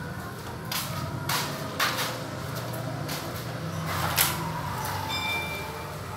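Several short scrapes and knocks, the loudest about four seconds in, over a steady low hum, with a brief high-pitched tone about five seconds in.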